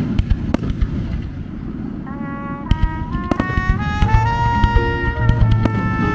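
Fireworks going off, a rapid run of sharp pops and crackles. About two seconds in, music with long held notes comes in over them.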